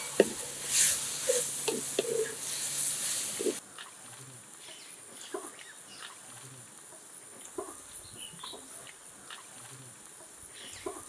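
Onion, tomato and spice masala sizzling in hot coconut oil in a clay pot, with a wooden spatula scraping and knocking against the pot as it is stirred. The sizzle stops about three and a half seconds in, leaving a quieter stretch with scattered bird chirps and a few soft knocks.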